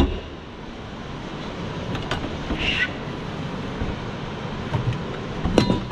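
Steady outdoor noise with wind on the microphone, broken by a few sharp clicks and knocks from the metal luggage-bay door latches of a tour bus being worked: one at the start, one about two seconds in, and several together near the end. A brief high squeak comes a little before halfway.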